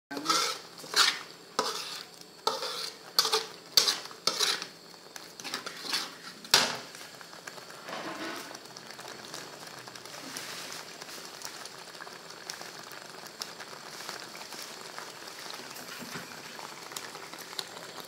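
Curry paste frying in a metal wok while a metal spatula scrapes and clanks against the pan, about once or twice a second for the first six or seven seconds, the loudest strike near the end of that stretch. After that only a steady sizzle of the frying paste.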